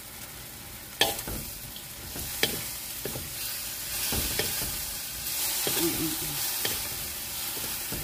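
Bean sprouts, tofu and egg sizzling in a steel wok as they are stir-fried with a wooden spatula, which knocks against the wok now and then, most sharply about a second in. The sizzle grows louder after that first knock.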